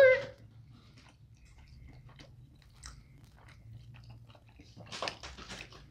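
Quiet mouth sounds of eating birria tacos: faint chewing, then about five seconds in a short run of crunchy, wet bites into a taco.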